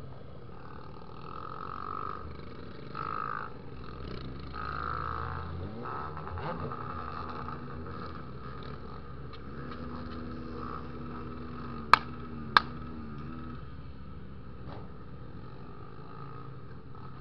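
Honda XR250 Tornado single-cylinder motorcycle engine running as the bike is ridden, its note rising and falling a little. Two sharp knocks about twelve seconds in, half a second apart, are the loudest sounds.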